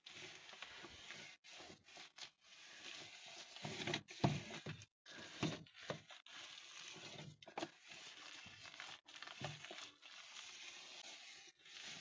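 Damp cloth wiping and rubbing over the plastic inner walls of a refrigerator: a faint, uneven rubbing with a louder swipe about four seconds in.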